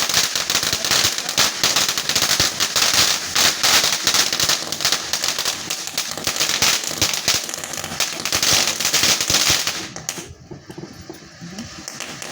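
Fireworks going off in a dense, rapid run of crackling pops that eases off about ten seconds in.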